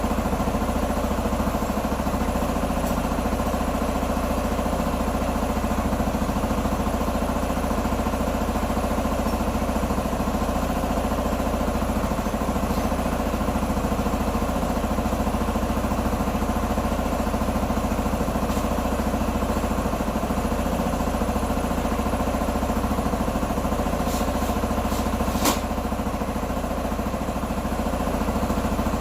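A Q2 125 Dynamic motorbike's engine idling steadily at an even speed, with one sharp click near the end.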